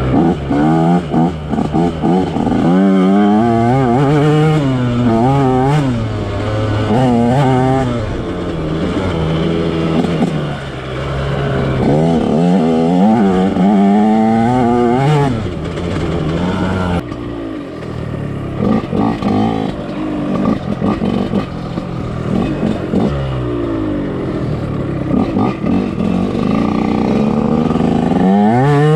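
Two-stroke dirt bike engine being ridden hard, revving up and down over and over as the throttle is opened and closed, its pitch swinging every second or so with a few brief drops off the throttle.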